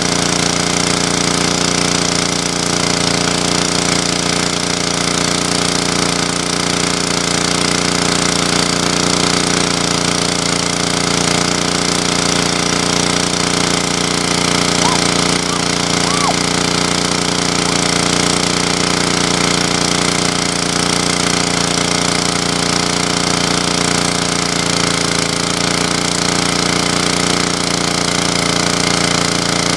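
A small engine running steadily at constant speed.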